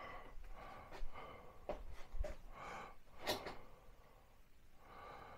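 A man's quiet breathing and sniffs, with a few small clicks.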